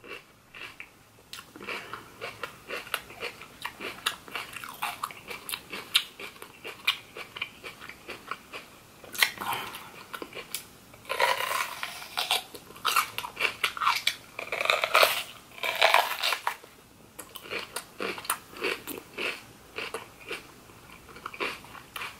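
A person biting into and chewing a raw yellow bell pepper: crisp, wet crunching throughout, with a few spells of louder crunching at the bites.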